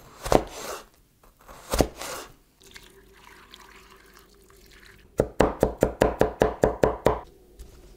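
A chef's knife cuts through a raw potato onto a wooden cutting board twice. A faint stretch follows, with potato strips stirred in a bowl of water. Then a cleaver chops garlic on the board, about ten quick chops in two seconds, the loudest sound here.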